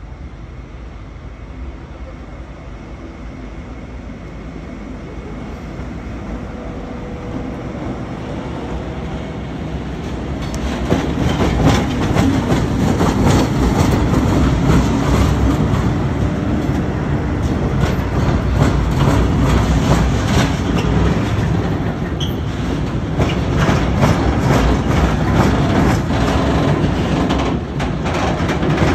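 Diesel locomotive hauling a freight train of tank wagons across a level crossing. It grows steadily louder over the first ten seconds, and from about eleven seconds the engine and wheels are loud. Repeated wheel clacks over the rail joints and crossing carry on to the end.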